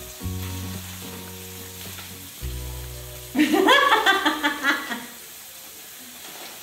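Background music of slow held chords, with a drawn-out hum of enjoyment, like an "mmm", from a man chewing food for about a second and a half around the middle.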